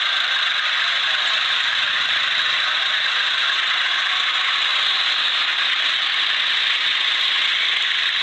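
Miniature tractor's small engine running steadily as it drives along, a continuous even noise with no change in speed.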